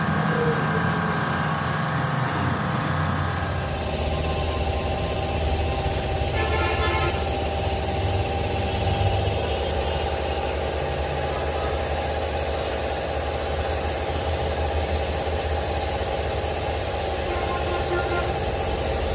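Air compressor running steadily, feeding a spray gun. The hiss of the gun spraying paint joins in about four seconds in.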